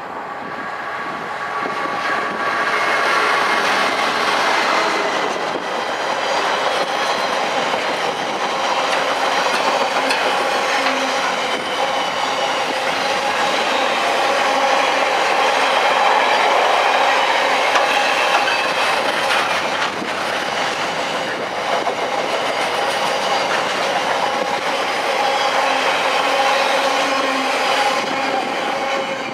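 Freightliner Class 66 diesel locomotive passing, followed by a long rake of container flat wagons rumbling and clattering over the rails, with steady whining tones from the running gear. The sound swells just after the start and fades as the last wagon goes by near the end.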